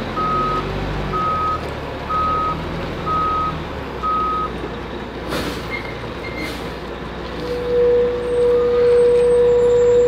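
Concrete mixer truck backing up, its reversing alarm beeping about once a second over the steady diesel engine rumble. The beeps stop about halfway through. Two short hisses follow, then a loud steady tone held for about the last three seconds.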